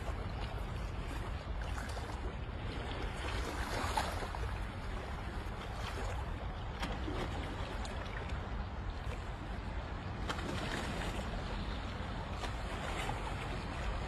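Sea water sloshing and splashing with wind rumbling on the microphone.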